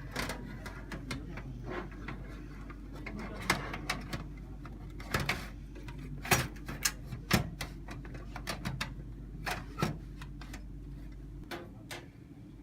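Irregular clicks and knocks of a computer power supply unit being handled and fitted into a PC case, with a few sharper knocks in the middle. A steady low hum runs underneath and stops near the end.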